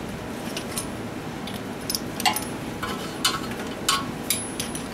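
Light metallic clinks and clicks of a small wrench and other hand tools against a small OHV engine, about half a dozen separate taps, most of them after the first second and a half, over a steady low background hum.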